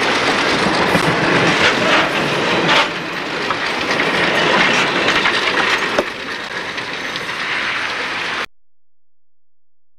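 Passenger coaches of a train rolling past, their wheels clicking over the rail joints in a steady clickety-clack. The sound cuts off suddenly about eight and a half seconds in.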